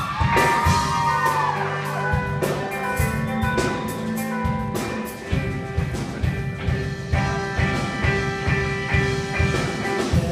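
Live punk rock band playing an instrumental passage: electric guitars and bass over a drum kit keeping a steady beat, with guitar notes bending in pitch near the start.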